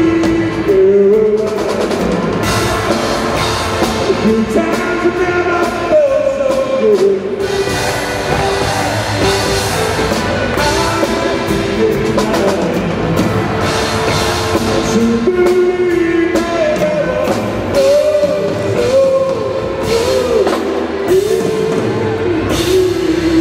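Live band playing an upbeat song on accordion, electric guitar and drum kit, with a voice singing the melody over a steady drum beat.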